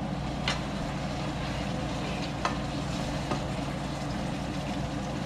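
Chicken karhai gravy sizzling in a frying pan as it is stirred with a metal utensil, which clicks against the pan a few times, over a steady low hum.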